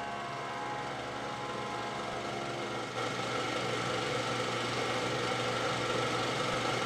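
A steady mechanical whirring drone that grows somewhat louder about three seconds in.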